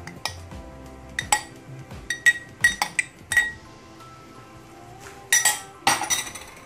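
Sharp clinks, about ten of them, from a glass cup being knocked against the rim of a metal frying pan to shake out grated cheese, over background music.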